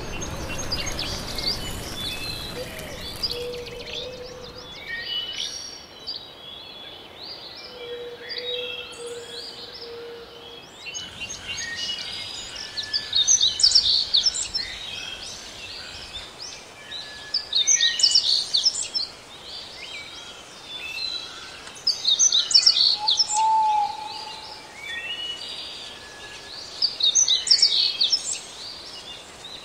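Songbirds singing over a steady background hiss, a burst of chirpy song repeating about every four to five seconds in the second half. A few short, low, steady calls sound in the first ten seconds.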